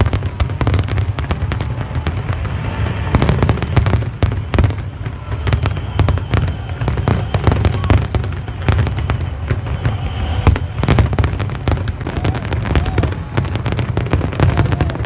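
Aerial fireworks going off in rapid succession: a steady low rumble of bursts laced with many sharp cracks and crackles.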